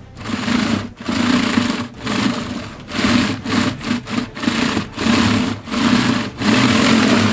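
Plastic brick-built model tank, a COBI Mark V, pushed back and forth across a table by hand, its plastic track links rattling quickly as they roll. The rattle comes in runs of about a second each, with brief breaks as the push changes direction.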